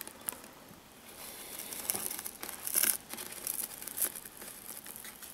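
Hobby knife blade cutting and scraping through thin fiberglass cloth stiffened with hardened resin, trimming it along masking tape: a run of dry, scratchy crackles, loudest about three seconds in.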